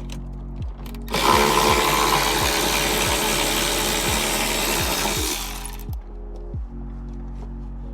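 A power tool running in one continuous stretch of about four and a half seconds, starting about a second in. Background music with a steady beat plays throughout.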